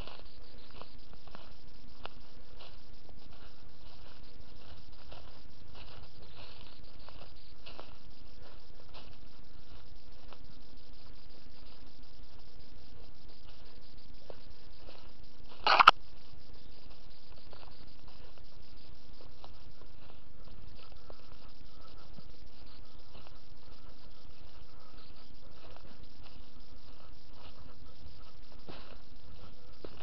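Irregular light crackling and rustling of footsteps through leaf litter and forest undergrowth, over a steady low hum. One loud sharp knock comes about sixteen seconds in.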